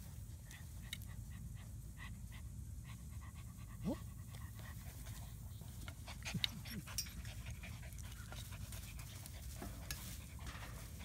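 Six-week-old German Shepherd puppies panting and scuffling while they play, with a short rising squeal about four seconds in.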